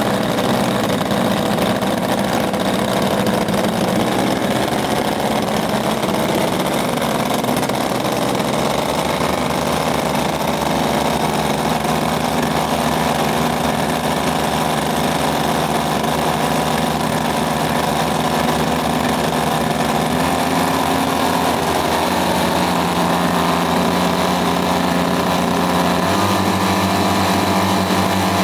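Two small internal-combustion engines of a hybrid drone's power unit running on a test stand. The engine note is steady and loud, and its pitch shifts in steps about a third of the way in and twice more near the end.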